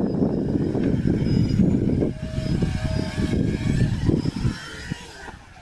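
Electric motors and propellers of a homemade RC jet-style model plane running as it flies low past, fading away near the end.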